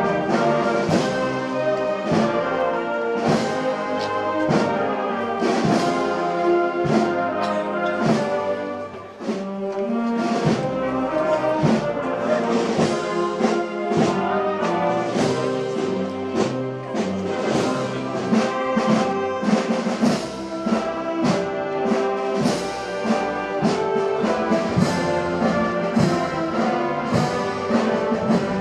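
Brass band playing a Holy Week processional march, with drums marking the beat; the playing dips briefly about nine seconds in.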